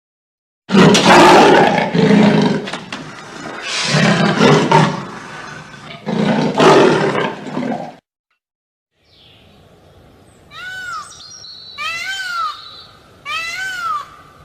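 Three loud, rough roaring calls, then after a short pause a cat meowing four times in short, high, arching calls.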